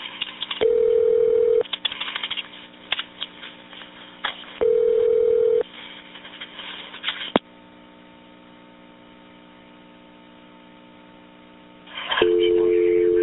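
Telephone line tones on a recorded 911 line: a single steady tone sounds twice for about a second, four seconds apart, then a click and a faint steady line hum, and a dial tone comes on near the end.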